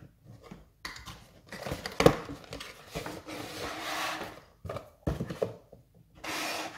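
Cardboard packaging being handled: the inner tray slides out of its box with scraping and rubbing, and there are a few sharp knocks as the pieces are set down on a wooden table.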